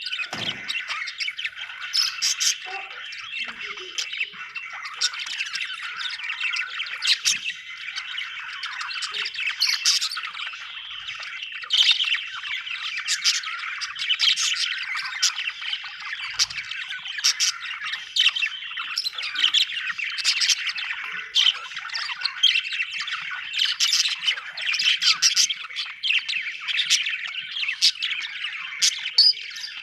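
Budgerigars chirping and chattering without a break, a dense run of short, sharp high chirps over constant warbling.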